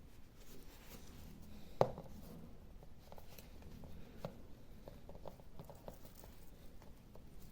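Small objects being handled in a small room: scattered light taps and clicks, with one sharper knock about two seconds in.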